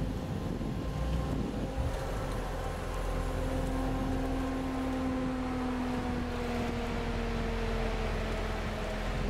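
Range Rover Sport running slowly off-road, heard from inside the cabin: a steady engine and cooling-fan drone over a low rumble, its pitch sinking slightly in the second half.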